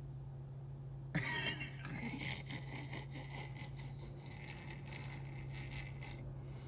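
Stifled, breathy laughter with the head bowed: a short voiced catch about a second in, then several seconds of wheezy, hissing breaths, over a steady low hum.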